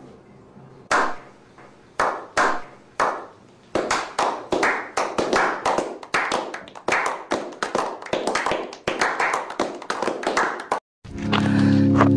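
A small group clapping hands as a slow clap. A few single claps about a second apart come first, then more hands join and the claps quicken into steady applause. It cuts off sharply about eleven seconds in, and music starts.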